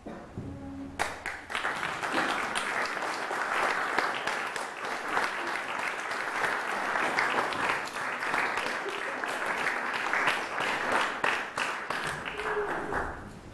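Audience applauding: the clapping starts about a second in, keeps up at a steady density, and stops near the end.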